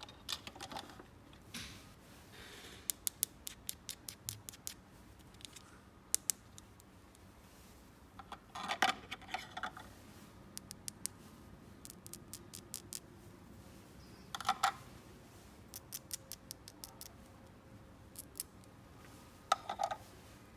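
Small plastic toy pieces being handled and unpacked: runs of quick, light clicks and taps, with a few louder bursts of handling noise.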